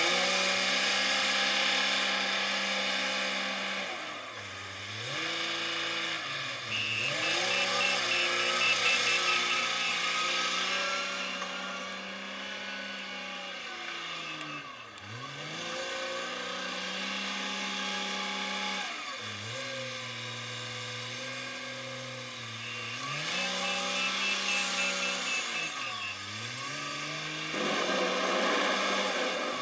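Komatsu WA350 wheel loader's diesel engine running under load, its revs dropping sharply and climbing again several times as the loader shuttles between forward and reverse. In stretches a high, rapidly pulsed reversing alarm sounds, the reversing sound that the owner finds odd.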